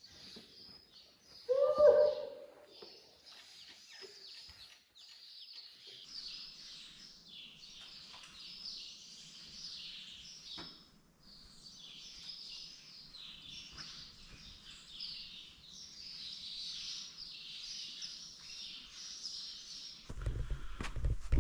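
Small birds chirping continuously, high-pitched and busy. About two seconds in comes one brief, louder pitched call. Near the end a loud low rumbling noise sets in.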